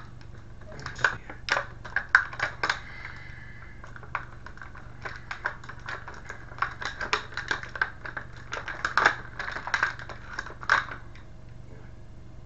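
Clear plastic packaging tray of an action figure crackling and clicking in irregular clusters as the figure is worked free of it.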